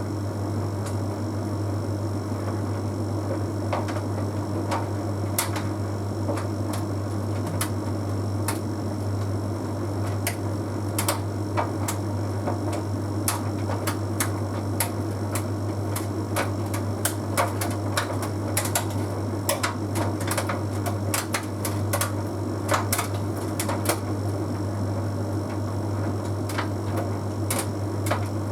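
Bosch Series 6 heat pump tumble dryer running mid-cycle: a steady low hum with irregular light clicks and taps from the half load of synthetic laundry tumbling in the drum.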